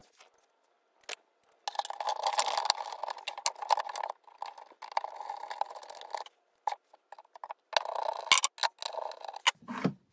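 Hand screwdriver turning screws through a metal ball-bearing drawer slide into the cabinet's side panel: three stretches of scraping, grinding turning with small clicks between them.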